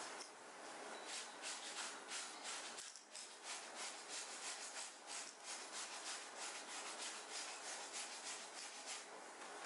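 Scrubbing strokes on the front of a cotton shirt, a cleaning tool rubbed back and forth over the stained fabric at about four strokes a second, with a brief pause about three seconds in.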